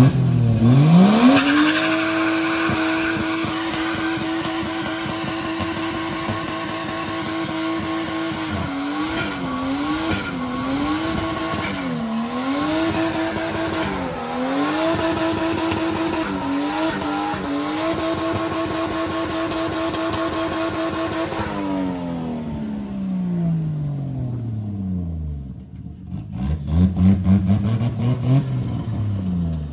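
Turbocharged Toyota 1G-FE inline-six with a straight-pipe exhaust held at high revs in a stationary burnout, the rear tyres spinning. The revs climb and hold steady, surge and dip several times in the middle, then fall away about two-thirds of the way through. A short burst of revs comes near the end.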